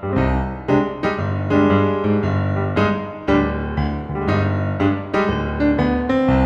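Background music on solo piano: a flowing run of struck notes, each ringing out and fading as the next comes in.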